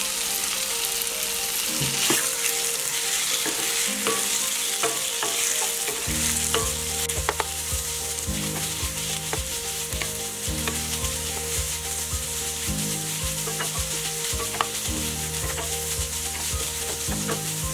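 Chicken pieces sizzling as they fry in a pan with shallots and ginger-garlic paste, with a spatula stirring them and now and then clicking against the pan.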